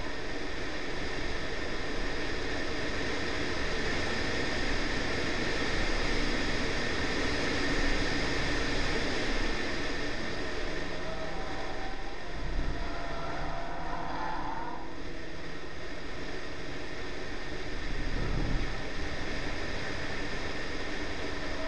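Honda Civic 1.8 VTi's B18C4 four-cylinder engine running at track speed, heard under a steady rush of wind and road noise on an outside-mounted microphone. There are brief low rumbles about halfway through and near the end.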